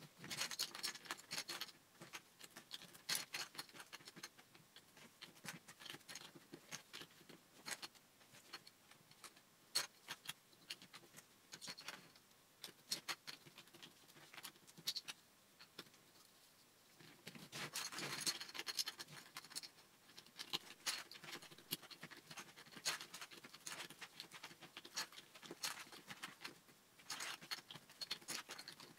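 Plastic Lego bricks clicking and rattling as they are handled and pressed together, in quick irregular ticks and scrapes, with a denser flurry of clatter about two-thirds of the way through.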